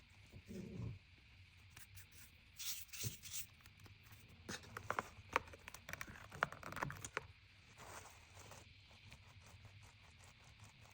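Packaging being handled and torn open: irregular crinkling, tearing and small taps and clicks, busiest through the middle and thinning out near the end.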